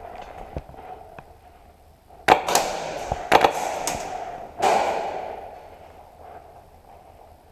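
A few sharp airsoft gun shots, two close pairs then a single one, each ringing on in a reverberant echo.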